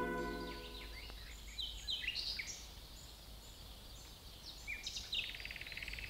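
Songbirds chirping in woodland, with short high chirps scattered through and a rapid, even trill from about five seconds in. A music cue fades out in the first second.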